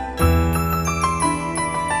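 Instrumental background music: sustained chords with high, bell-like notes over a deep bass note that comes in about a quarter second in.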